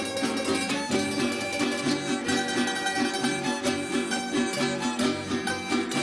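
A Venezuelan estudiantina, a string ensemble of bandolas, mandolins, guitars and violin, playing an instrumental piece: plucked string notes in a steady rhythm, with a bowed violin line.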